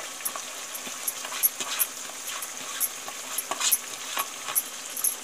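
Chicken pieces frying in butter and oil in a kadhai, sizzling steadily with frequent small crackles and pops.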